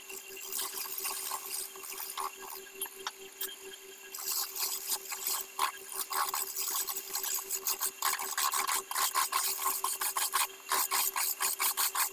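Hand-held turning chisel scraping and cutting a spinning wooden spindle on a belt-driven wood lathe, as a rapid run of short rasping strokes that grows louder about four seconds in and again near eight seconds. Under it runs the steady hum of the lathe's electric motor.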